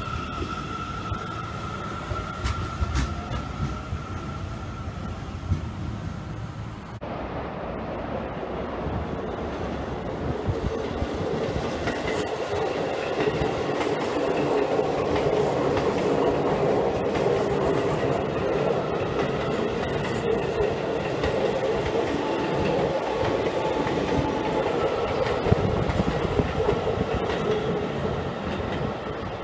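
Seibu 30000 series electric train. First its traction motors whine with steady tones as it pulls away from the platform. About seven seconds in the sound cuts to the train passing close by, a steady rolling rumble and clatter of wheels on the rails that swells and then eases near the end.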